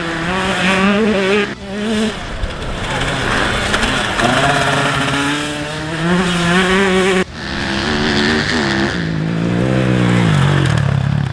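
Racing motorcycle engine revving hard through corners, its pitch climbing and falling with the throttle. The sound is cut off abruptly about seven seconds in, then the revs wind down and hold steady near the end.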